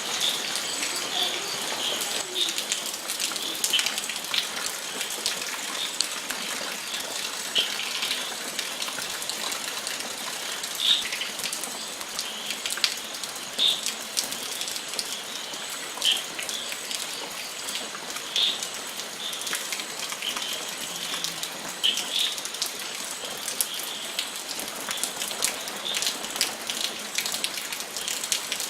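Steady rain falling, with many small drops pattering and louder individual drips every second or two.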